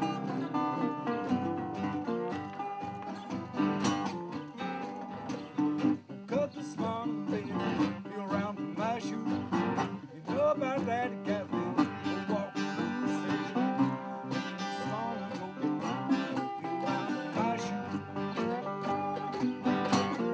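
A resonator guitar and two acoustic guitars playing a blues together, plucked notes with frequent bends and slides.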